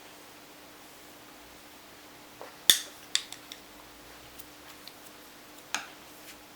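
A few light, sharp clicks and clinks of small hard painting tools being handled on the desk, over a faint steady hum. The loudest comes a little under three seconds in, two or three smaller ones follow quickly, and one more comes near the end.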